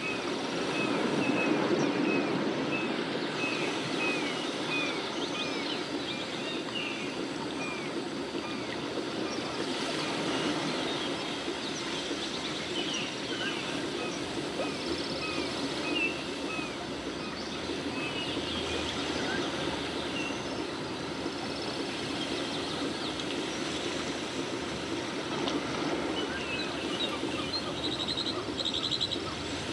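Running water with birds chirping. A short falling chirp repeats about twice a second for roughly the first nine seconds, then chirps come scattered.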